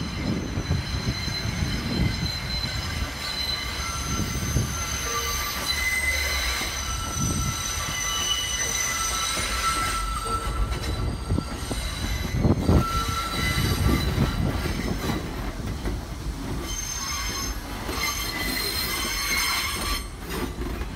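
New York City Subway R32 train passing close by, wheels rumbling on the rails, with high-pitched wheel squeals that come and go.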